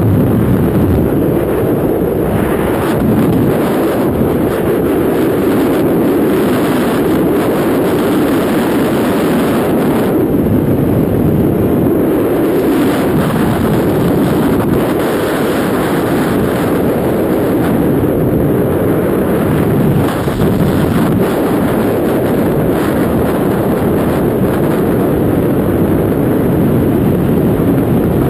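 Loud, steady rush of freefall wind buffeting a camera's microphone during a tandem skydive.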